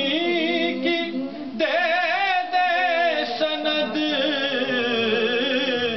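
A man's voice singing an Urdu naat, drawing out long ornamented notes with a wavering pitch. A new phrase begins about one and a half seconds in.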